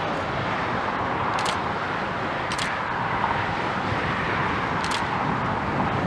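Steady, distant rumble of an approaching diesel-hauled intermodal freight train led by Union Pacific 1989, an EMD SD70ACe locomotive.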